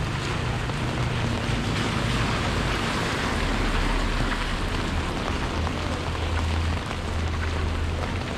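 Steady rain falling, an even hiss, with a low steady hum underneath.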